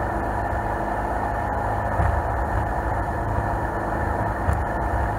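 Jet boat under way: its engine running steadily with water rushing past the hull, and a couple of brief thumps.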